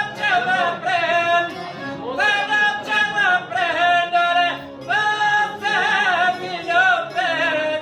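Male voices singing an Albanian folk song, with long held high notes broken by quick wavering ornaments and slides between phrases.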